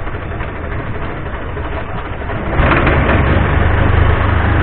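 Long-tail boat's exposed engine running with a steady low drone, growing louder about two and a half seconds in as it is throttled up.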